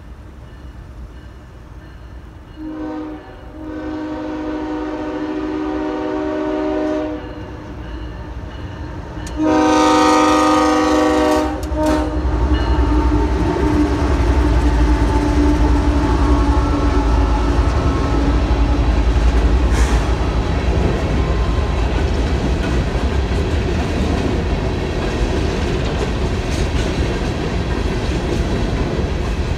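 Multi-chime air horn on GE Evolution-series freight locomotives sounding for a grade crossing: a brief blast, then a long one, then a louder long blast about ten seconds in. The locomotives' diesel engines then rumble past, followed by freight cars rolling by with steady wheel clatter on the rails.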